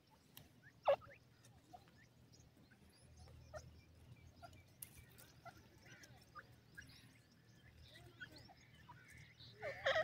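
Grey francolins giving short, soft clucking notes scattered through, with one sharp louder note about a second in and a louder burst of calls near the end.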